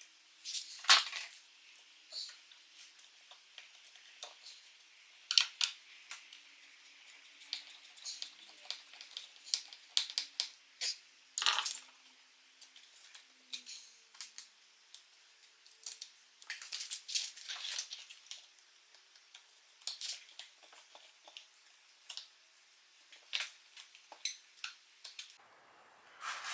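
Irregular light clicks, taps and small metallic clinks of screws and hand tools being handled while a glued wooden leg piece is fitted for screwing. No power tool runs.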